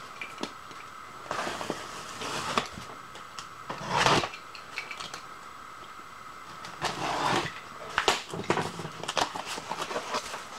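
A utility knife slitting the packing tape on a cardboard box, then the box flaps being pulled open. Several short scraping strokes, the loudest about four seconds in, followed by scattered clicks and rustles of cardboard over a faint steady hum.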